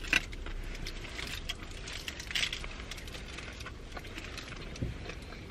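Foil sandwich wrappers crinkling in short, scattered rustles as they are handled, over a steady low rumble inside a car's cabin.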